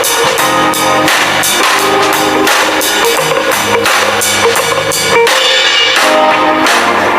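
Background music with a steady drum-kit beat over pitched instruments.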